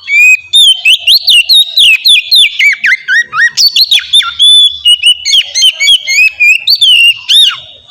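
Oriental magpie-robin (kacer) singing a loud, fast, unbroken run of varied clear whistled notes with quick upward and downward slides, stopping shortly before the end.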